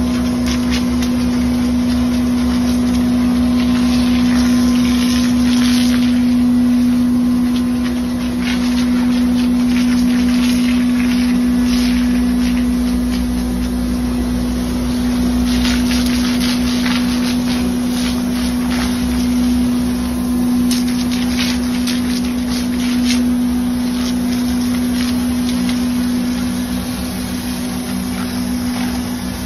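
Concrete mixer truck's engine running with a steady, unchanging hum. Several bursts of hissing come from a hose spraying water onto the truck.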